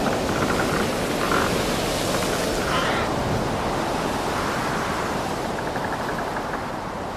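Ocean surf washing steadily, with a few short bird calls over it; the surf fades slowly near the end.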